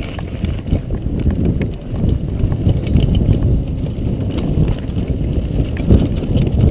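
Lapierre Froggy 518 mountain bike rolling fast down a dirt trail: a steady rumble of tyres on dirt, with frequent knocks and clatter from the bike over bumps.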